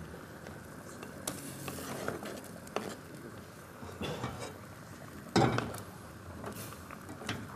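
Kitchen knife scraping across a plastic cutting board as cubed taro is pushed off into a stainless steel pot, with light clicks and clatter of the pieces and board against the pot, and one sharper knock a little past five seconds in.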